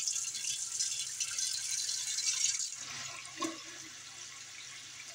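Tap water running from a kitchen faucet into a large pot standing in a stainless steel sink, filling it. The splashing hiss drops and softens about three seconds in.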